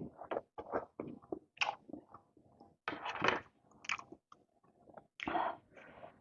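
A person chewing and biting food close to the microphone: a dense, irregular run of short wet smacks and crunches, with louder bursts about three seconds and five seconds in.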